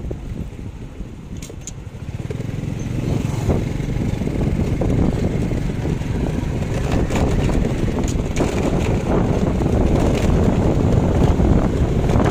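Motorcycle riding noise: a steady engine and road rumble mixed with wind buffeting the microphone, getting louder about two seconds in.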